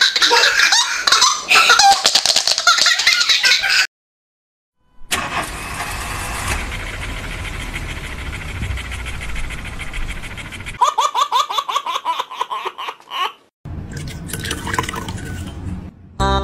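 A baby laughing hard in repeated bursts, cut off suddenly. After a second of silence comes a steady rushing noise with a low rumble, then a quick run of short repeated sounds, about five a second.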